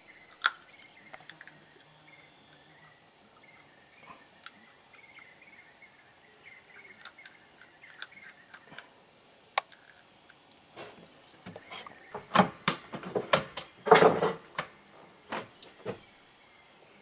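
A steady, high-pitched chorus of insects, with a run of sharp knocks and thumps about twelve to fifteen seconds in.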